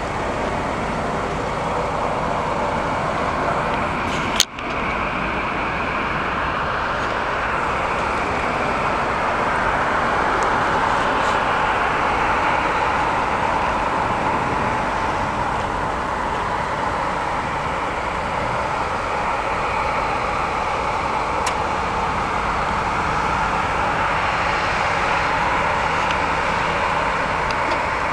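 Boeing 737-700's CFM56 turbofan engines running at taxi power, a steady rushing jet noise. A single sharp click about four seconds in.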